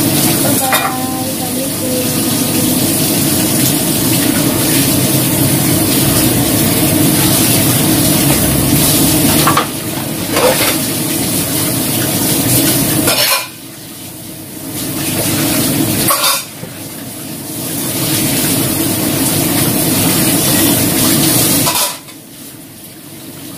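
Kitchen tap running water onto dishes in the sink as bowls are rinsed by hand, with a few clinks of crockery. The rush of water drops sharply about halfway through, again a few seconds later, and near the end.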